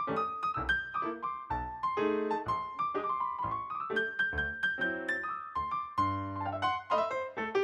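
Background music: a piano or electric keyboard playing a quick melody of short notes over chords.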